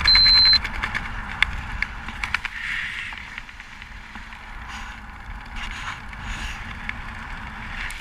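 Loud wind rush and a high beeping tone cut off about half a second in. Softer steady wind noise follows under an open skydiving parachute canopy, with occasional rustles and clicks.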